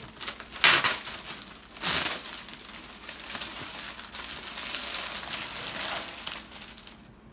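Clear plastic packaging bag crinkling and rustling as it is pulled open and a wrapped item is drawn out and handled. There are two louder rustles in the first couple of seconds, then steady crinkling that dies away near the end.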